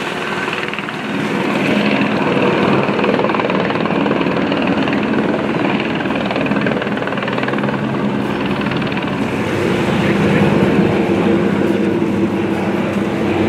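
Helicopter flying overhead: a steady, loud rotor-and-engine drone that builds over the first couple of seconds and then holds.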